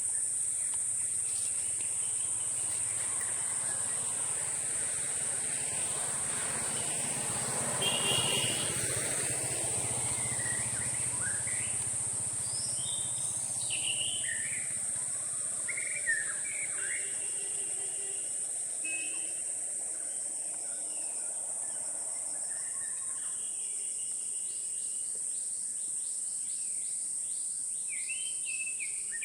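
Forest ambience: a continuous high-pitched insect drone of crickets or cicadas, with scattered short bird chirps and calls that grow more frequent in the second half. A broad rushing noise swells and fades about six to eleven seconds in.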